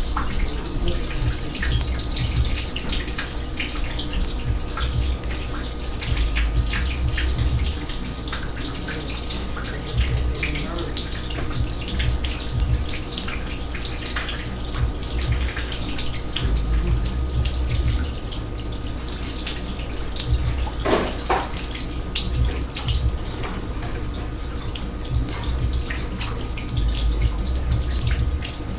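Water running and splashing steadily from an overflowing kitchen sink, with many small splashes and drips throughout.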